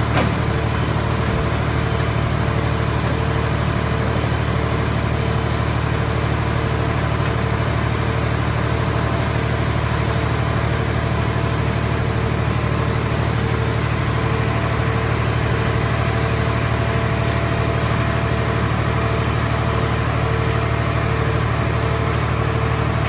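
Mobile car-shell scrap baler's hydraulic power unit running steadily, a low, even engine drone that holds the same pitch throughout.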